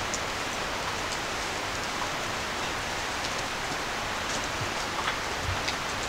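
A steady, even hiss like falling rain, which cuts in abruptly just before and holds level, with a few faint ticks on top.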